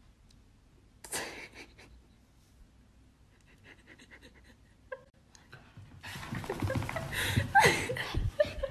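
A dog huffing and panting, with a sharp huff about a second in and a brief whine about five seconds in. The last few seconds are louder, with busier breathing sounds.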